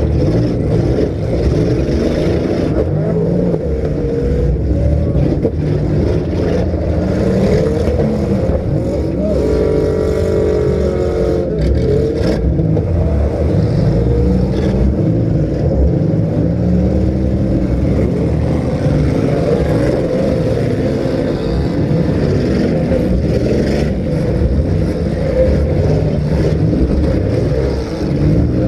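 Several compact cars' engines revving hard and unevenly in a demolition derby, their pitch climbing and falling over one another, with a few sharp knocks of impact along the way.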